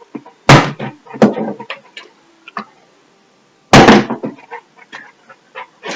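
Plastic water bottle being flipped and landing on a hard surface: two loud thuds about three seconds apart, with a few smaller knocks between.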